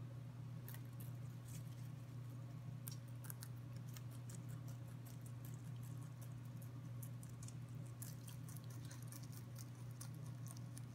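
Rabbit chewing fresh leafy greens: quick, crisp little crunching clicks in irregular runs, over a steady low hum.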